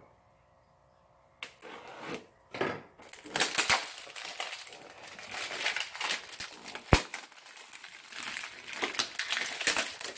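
Cardboard mystery-box packaging torn open by hand, crinkling, scraping and crackling, starting about a second and a half in. One sharp snap about seven seconds in is the loudest sound.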